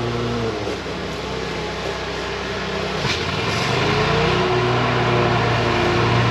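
Small gasoline engine of lawn equipment running steadily. Its pitch sags about half a second in, dips again around three seconds, then climbs back up and holds.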